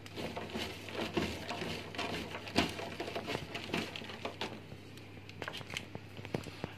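Hands tossing and mixing damp dried anchovies in a plastic colander: a continuous, irregular patter of small rustles and clicks.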